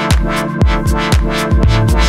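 Electronic background music with a steady beat of deep bass drum hits under held synth chords.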